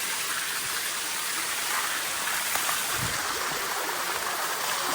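Steady rush of water pouring over the rocks of a waterfall, heard up close, with a brief low thump about three seconds in.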